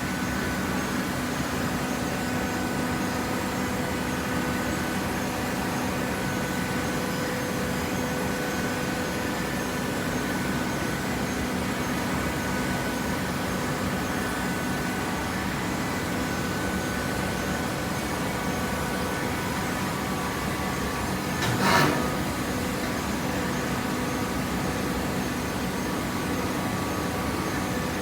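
Horizontal hydraulic waste-paper baler running: a steady machine hum with a constant drone of fixed tones. About three-quarters of the way through, a brief louder noise stands out.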